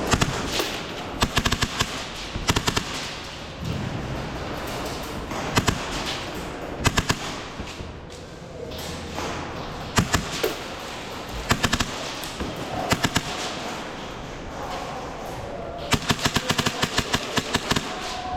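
Airsoft guns firing in short bursts of rapid shots every second or two, with a longer rapid string near the end.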